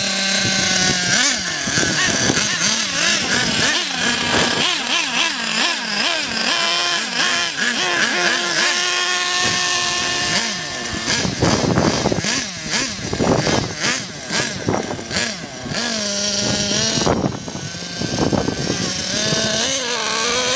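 Nitro RC buggy's small two-stroke glow engine revving up and down in quick bursts as the car is driven.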